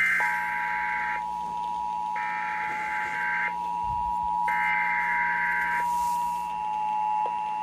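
Emergency Alert System signal: three roughly one-second bursts of the warbling SAME digital header, about a second apart, over the steady two-tone EAS attention signal, which runs on unbroken. It is the start of a flood warning broadcast.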